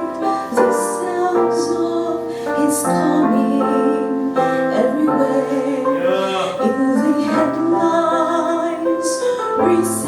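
Piano-led instrumental accompaniment playing held chords: the introduction to a gospel song, before the voice comes in.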